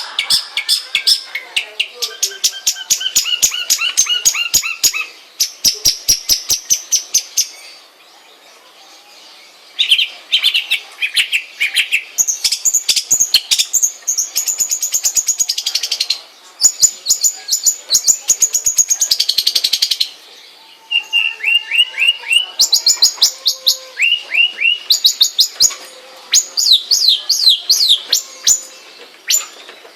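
Long-tailed shrike (cendet) singing: fast runs of sharp, rapidly repeated chirps in phrases a few seconds long, broken by two short pauses.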